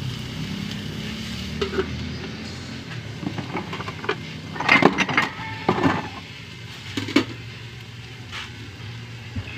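Metal lid being set onto a wok: a run of clinks and knocks, loudest about five to six seconds in, with one last knock near seven seconds.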